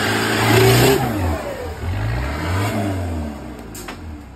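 Modified off-road 4x4's engine revving hard under load in repeated bursts, its pitch rising and falling as the truck climbs out of a muddy ditch; the revs die down toward the end, and a short sharp click sounds near the end.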